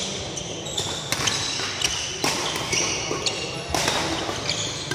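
Badminton rally: sharp racket strikes on the shuttlecock at irregular intervals, with sneakers squeaking in short high-pitched chirps on the court floor.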